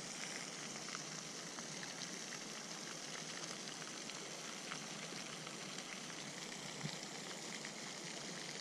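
Pond fountain spraying: a steady, even splashing hiss, with a few faint clicks.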